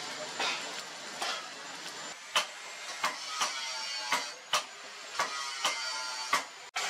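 Hand hammer striking a red-hot steel machete blank on an anvil, about ten blows at an uneven pace, many followed by a short metallic ring.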